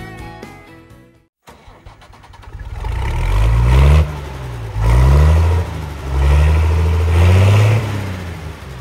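After a brief dropout, a vehicle engine revs up and accelerates: its pitch climbs and falls back three times, like a heavy vehicle pulling away and shifting up through its gears.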